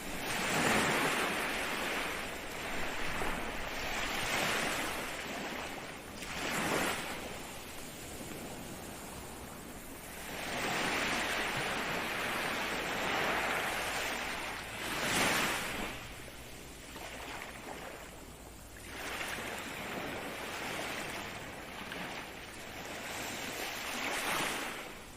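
Ocean surf: waves break and wash in one after another, the rush of water swelling and fading every few seconds, with sharper crashes about a quarter of the way in and again past the middle.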